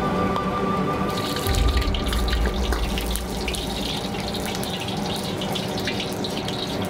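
A metal ladle scraping and clinking in a wok set over a high gas flame as the oil heats, with many small clicks over a steady rush of running water from the wok station's tap. Background music fades out in the first second.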